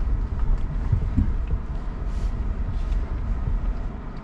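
Inside the cab of a Rivian R1T electric pickup crawling over a rough dirt trail: a steady low rumble of tyres and suspension, with a few short knocks, and no engine note.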